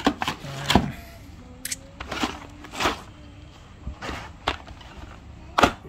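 A run of short plastic clicks and knocks, about nine in all, the loudest near the start and near the end: the hard red plastic case of a 46-piece socket set and a blister-packed hex key set being handled on a wooden table, and the case being opened.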